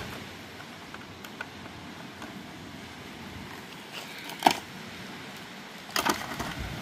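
Cooking gear being handled: a few sharp clicks and knocks, the loudest about halfway through and a small cluster near the end, over a steady background hiss.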